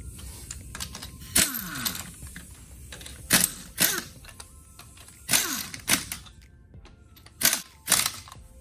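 Cordless impact wrench running lug nuts onto a front wheel in seven short bursts, several of them in quick pairs, each ending in a brief falling whine as the motor spins down. Faint background music underneath.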